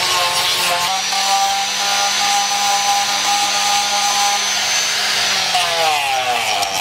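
Electric angle grinder with a sanding disc sanding a knife handle: a steady motor whine over a rasping sanding noise. The pitch dips a little about a second in, and near the end the whine falls steadily as the grinder winds down.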